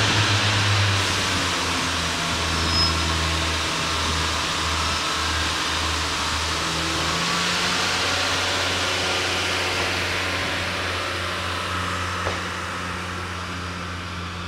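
A Class 153 and Class 144 diesel multiple unit pull away. Their underfloor diesel engines run under power with a steady low drone over a broad hiss. The sound slowly fades as the train draws away.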